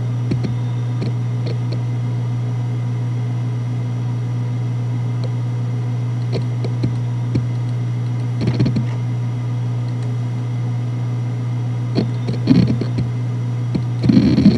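Single-platter Toshiba MG04ACA100N 3.5-inch 7200 rpm hard drive spinning with a steady hum, broken by occasional single head-seek clicks and two short bursts of seeking about 8.5 and 12.5 seconds in. Near the end, rapid continuous seek chatter starts as the drive begins file access.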